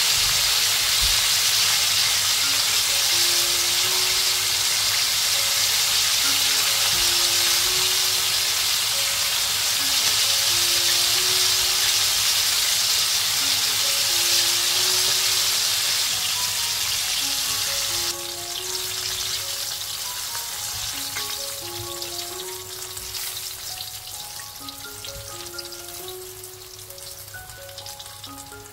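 Chicken wings deep-frying in hot oil in a wok: a dense, steady sizzle of bubbling oil that drops sharply about two-thirds of the way in and then fades as the bubbling calms, with the wings being lifted out with tongs near the end. A soft looping melody plays underneath.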